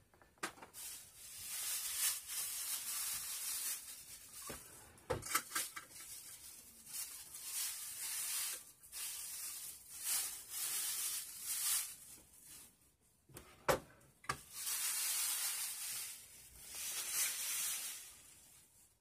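Rustling and rubbing of things being handled and rummaged through, in long swishes of a second or two each, with a few sharp knocks, the loudest about fourteen seconds in.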